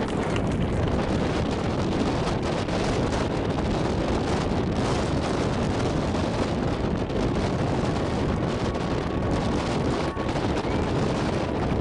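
Wind buffeting the camera's microphone: a steady, heavy rushing rumble that covers everything else.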